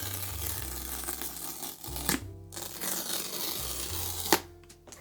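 Wrapping being torn and peeled off an iPad Pro box, a dense rustling tear with two sharp snaps, about two seconds in and near the end, over background music with a steady bass line.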